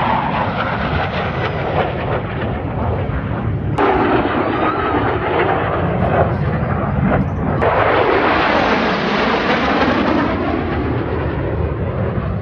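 Fighter jet roaring low overhead, a loud, crackling rumble that swells and sweeps past. It breaks off abruptly about 4 and 8 seconds in, where separate passes are spliced together.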